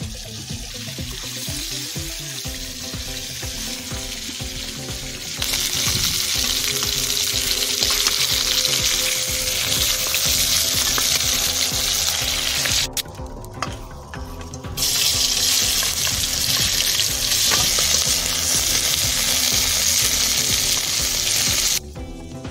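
Stingray fish pieces frying in hot oil in a wok: a steady sizzle that grows much louder about five seconds in, breaks off briefly around the middle and stops just before the end.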